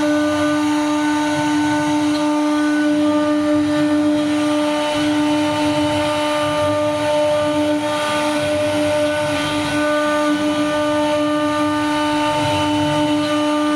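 CNC router carving wood: the spindle runs with a steady, unchanging whine, over an uneven rumble from the cutter working through the wood.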